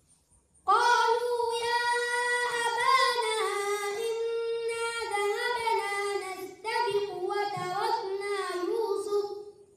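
A young boy chanting Qur'an recitation, holding long notes with wavering ornaments. It starts about a second in and pauses briefly for breath about two-thirds of the way through.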